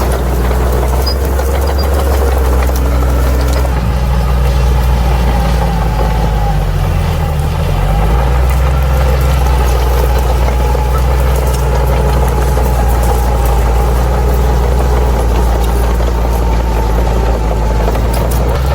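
Crawler bulldozer's diesel engine running steadily under work, its low note dipping briefly about seven seconds in and then recovering.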